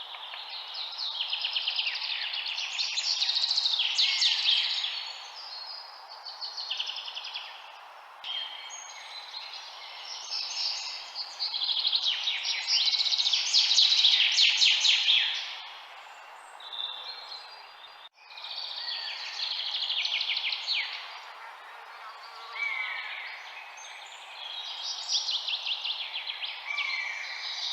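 Several songbirds singing at once in rapid trills and chirps over a steady low background rush. The sound drops out for an instant about two-thirds of the way through.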